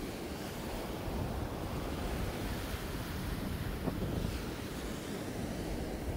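Underwater ambient noise: a steady low rumble and hiss of moving water, with a faint click about four seconds in.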